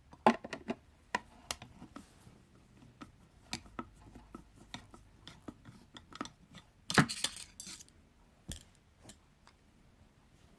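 Clicks and clatter of hard parts and screws being handled while a loudspeaker is taken apart, with a louder rattling burst about seven seconds in.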